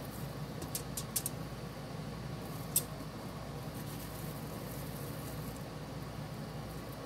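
A few light clicks of food being handled on aluminium foil, about a second in and once more near three seconds in, as a ground beef patty is set down, over a steady low hum of room noise.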